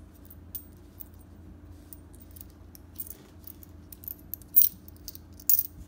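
Small silver coins clinking against each other as they are picked up and gathered in the palm: scattered light clicks, with the loudest clinks a little past halfway and near the end.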